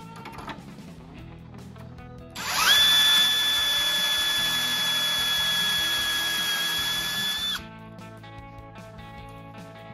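Cordless drill running a step drill bit into a plastic console: a loud, steady high whine that starts about two and a half seconds in, rises briefly as it spins up, holds for about five seconds and stops suddenly. Background guitar music plays underneath.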